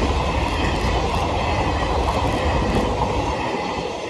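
A D445-hauled train of passenger coaches rolling past close by, its wheels rumbling on the track and clicking over the rail joints a few times. The rumble begins to fade near the end as the train moves away.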